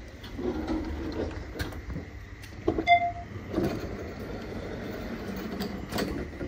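Steady rumbling ride noise inside a moving passenger vehicle, with occasional knocks and rattles and a short electronic beep about three seconds in.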